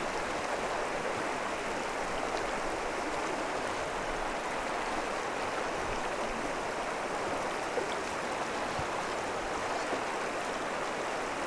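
Shallow, rocky trout river flowing, a steady even rush of water.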